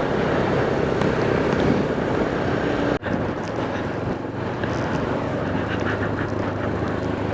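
Motorcycle engine running steadily while riding, with wind and road noise. The sound drops out for an instant about three seconds in.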